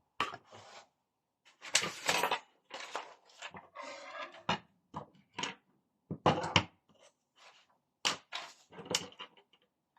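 Tools and small parts being moved and rummaged about on a workbench: irregular knocks, clicks and rustles, the sound of a hunt for a lost screw.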